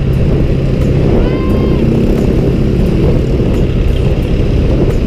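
Small motor scooter's engine running steadily while riding, under heavy wind rumble on the rider's camera microphone.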